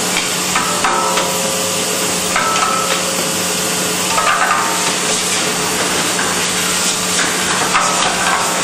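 12-head rotary syringe filling machine running: a steady motor hum under continuous clicking and clattering of syringes and change parts, with short higher-pitched tones now and then.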